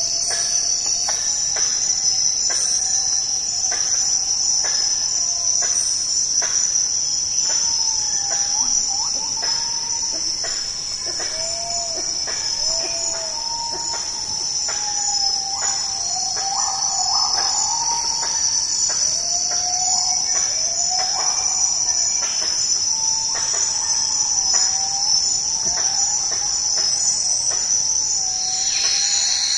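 Steady, loud, high-pitched buzzing of a tropical rainforest insect chorus. Over it come repeated faint whistled calls that glide up and down at a middle pitch, mostly from about a quarter of the way in.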